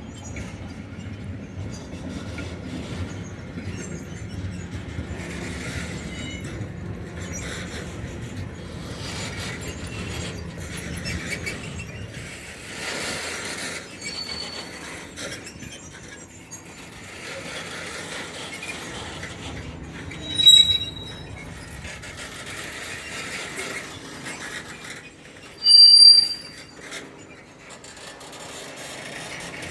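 Railway wagons rolling slowly through a shunting yard, rumbling and rattling with clicks from the track. Two short, piercing wheel squeals come about twenty and twenty-six seconds in, the second the loudest.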